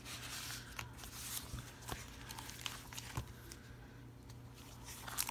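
Sticker sheets and sticker-book pages being handled: light paper rustling with a few short ticks and taps, over a steady low hum.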